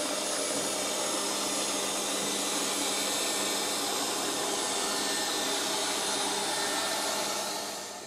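Haier XShuai T370 robot vacuum cleaner running on a cleaning cycle: a steady whirring hiss of its suction fan and brushes over a low hum. It dies away near the end.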